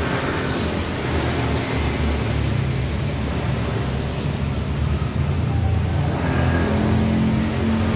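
Motor vehicle engines giving a steady low rumble, like road traffic passing, with the rumble growing a little stronger from about six seconds in.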